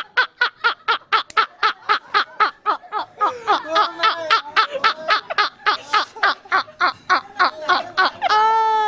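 Rapid, rhythmic laughter, about five 'ha's a second, with other voiced laughter overlapping through the middle and a long drawn-out vocal note near the end.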